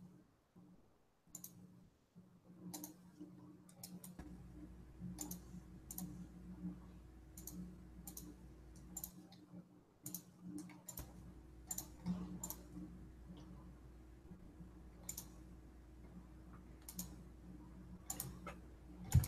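Faint, scattered sharp clicks at an irregular pace, about one or two a second, from someone working a computer, over a steady low electrical hum.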